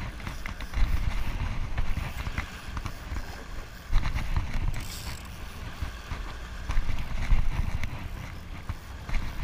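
Wind rumbling on the microphone and water washing against a small boat's hull, rising and falling, with scattered clicks and knocks from a spinning reel being handled and cranked during a fish fight.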